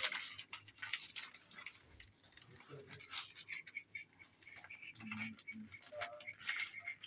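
Paper wrapping crinkling and tearing in irregular quick crackles as a small gift is unwrapped by hand.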